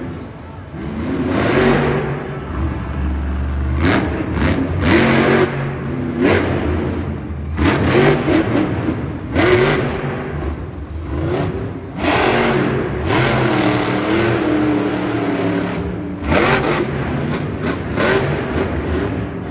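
Monster truck's supercharged V8 engine revving hard in repeated bursts every second or two, its pitch rising and falling with each burst.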